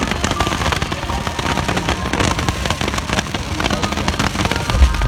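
Fireworks and firecrackers going off in rapid succession, a dense, unbroken crackle of many pops and bangs, with a deeper rumble coming in near the end.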